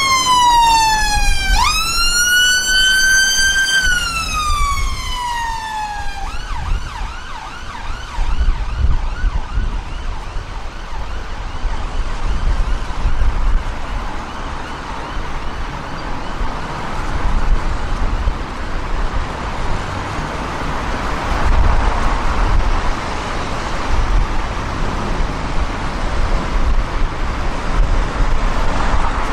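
Ambulance siren wailing in slow falling and rising sweeps, then changing to faster, fainter sweeps that fade out, leaving steady road traffic noise with a low rumble.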